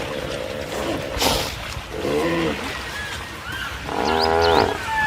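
Animal calls: a short low call about two seconds in and a longer drawn-out call about four seconds in, with small high chirps between them.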